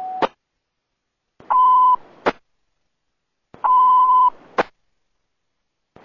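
Fire dispatch radio alert tones. A long paging tone cuts off with a click just after the start. Then come two short, steady alert beeps about two seconds apart, each carried on radio hiss and each ending in a sharp squelch click.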